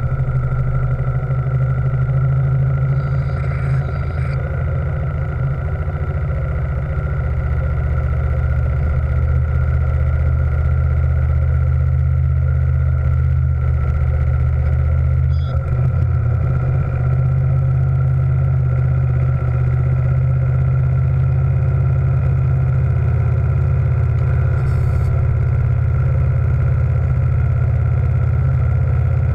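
Steam launch machinery running steadily: a loud, even low hum with a faint steady higher tone, unchanging throughout.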